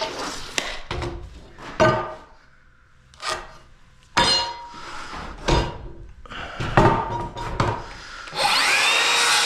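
Wooden 2x4 lumber being handled, with several knocks and scrapes of the boards. About eight seconds in a power saw starts and runs steadily, cutting a 2x4 plate to length.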